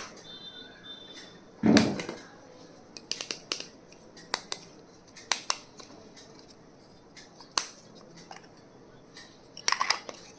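Stationery items and their packaging being handled: scattered sharp clicks and taps, with a louder knock about two seconds in and a quick cluster of clicks near the end.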